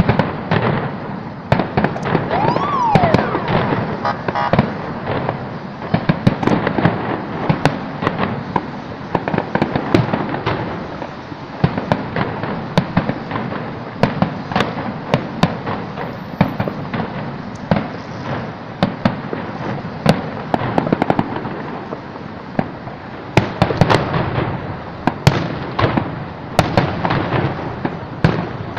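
Fireworks display: aerial shells bursting in a continuous, overlapping barrage of sharp bangs and crackling. About two and a half seconds in, a short tone rises and falls above the bangs.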